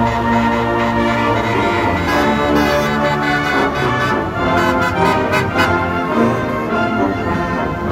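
Orchestral background music led by brass, playing held notes that change every second or so.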